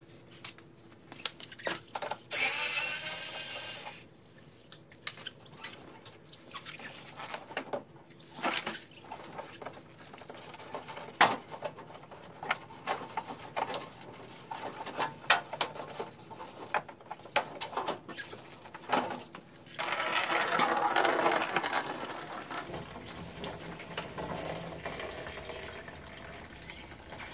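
Scattered clicks and knocks of hand-tool work in a car's wheel well, then, about twenty seconds in, a few seconds of windshield washer fluid pouring and splashing into a plastic bin from the disconnected reservoir hose, tailing off.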